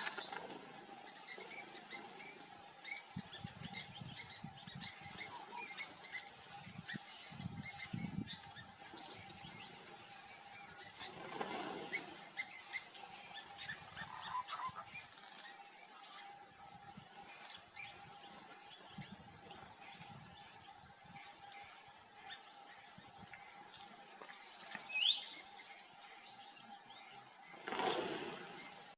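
Wild birds chirping and calling in many short, high notes, with a louder rising call near the end, over a faint steady hum and occasional low thumps.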